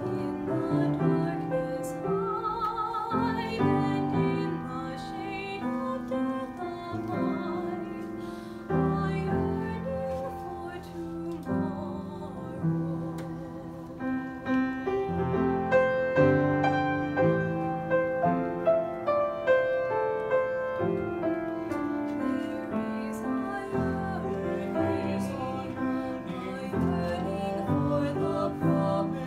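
Vocal duet with piano accompaniment: a young woman sings long notes with vibrato over the piano, and a young man's voice joins near the end.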